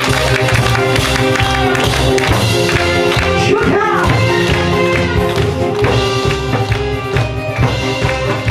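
Instrumental music played loud over a sound system, with held melody notes over a steady bass beat, and large barrel drums beaten along in time.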